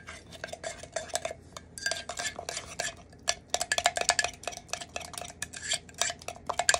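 A utensil stirring egg into batter in a ceramic mug, with rapid, irregular clinks and scrapes against the mug's sides.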